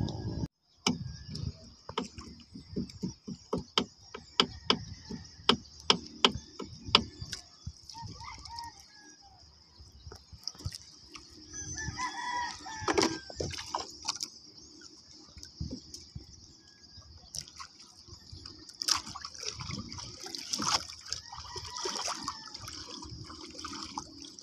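A quick run of sharp taps and knocks in a small wooden outrigger boat during the first seven seconds or so, then a rooster crowing about halfway through, over a steady high hiss and faint water.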